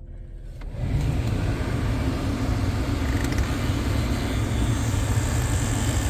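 Car heater blower fan switched on in extreme cold, starting about a second in and then running steadily with a low, rough rumble that sounds like an old person, or like something is going to crawl out of the heater.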